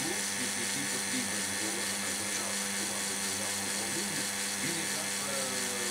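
Reverse-osmosis system's booster pump running steadily during the membrane flush cycle, a constant low hum with an even hiss over it.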